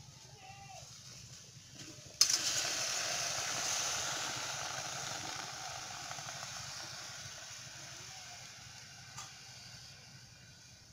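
Chopped green vegetables hitting a hot aluminium karai and sizzling. The sizzle starts suddenly and loudly about two seconds in, then slowly dies down over the next several seconds.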